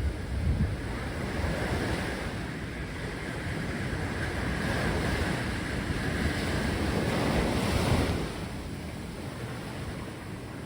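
Mediterranean sea waves washing onto the shore, the surf swelling and ebbing, loudest about eight seconds in, with wind rumbling on the microphone.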